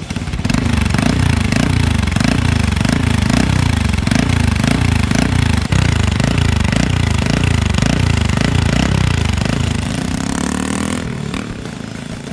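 Honda CG 160 Titan's air-cooled single-cylinder engine, breathing through an aftermarket sport mini exhaust, revved in quick repeated throttle blips, about two a second. About ten seconds in it climbs in one longer rise, then drops to a quieter engine note.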